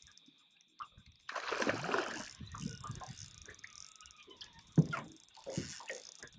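Water splashing as a hooked trout is played on a spinning rod beside an aluminium boat, with scattered knocks and one sharp knock about five seconds in.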